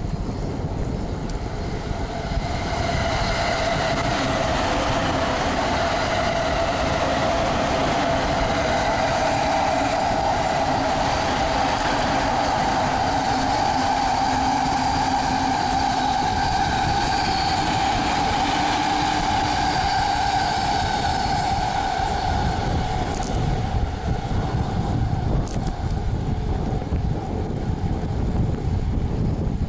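A train going by: a steady whine that rises slowly in pitch for about twenty seconds, then fades, over the low rumble of wind on the microphone while cycling.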